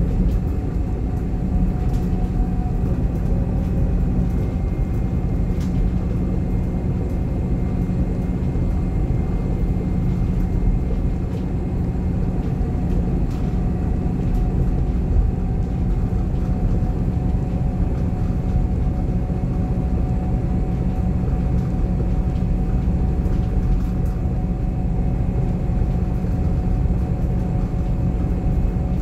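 Scania DC9 five-cylinder diesel engine running steadily, heard from the rear of the bus's passenger cabin: a constant low rumble with a faint steady whine over it.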